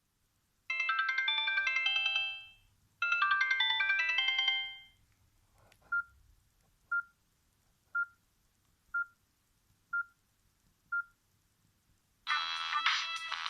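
Sony Ericsson S312 ringtones playing through a Samsung GT-B3210 phone's speaker. First a short tinkling melody plays twice, then six short single-pitch beeps come about one a second. Near the end a fuller, busier ringtone starts.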